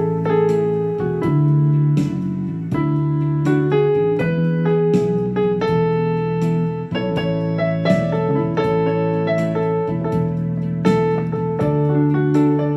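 Instrumental background music on a keyboard, with notes and chords struck about once a second and left to ring.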